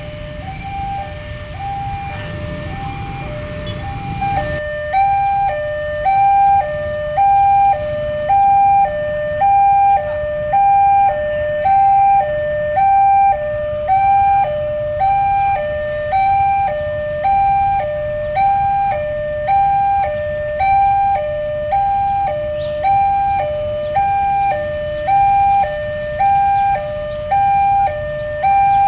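Railway level-crossing warning alarm sounding a two-tone electronic signal, alternating high and low about once a second, the sign that the crossing is closed for an approaching train. It gets louder about four and a half seconds in. Under its first few seconds, a low rumble from a train that has just passed fades away.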